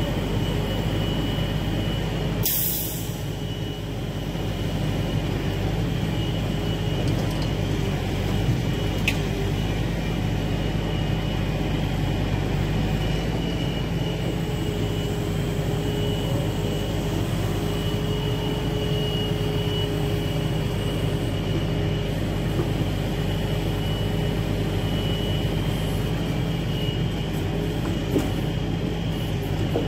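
Log truck's diesel engine running steadily to power its hydraulic knuckleboom log loader as the crane lifts and swings logs, with a faint whine in the middle stretch. A short hiss about two and a half seconds in.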